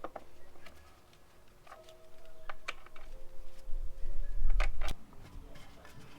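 Scattered metallic clicks and knocks of tools and the motorcycle chain being handled, with a low rumble of handling noise about halfway through.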